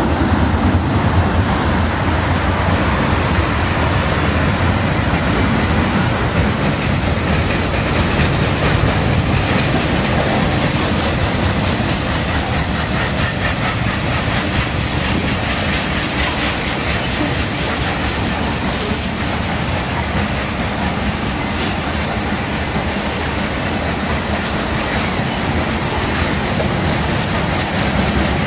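Freight train of tank cars, covered hoppers and boxcars rolling past close by: a loud, steady rumble of steel wheels on rail, with the clack of wheels passing over rail joints.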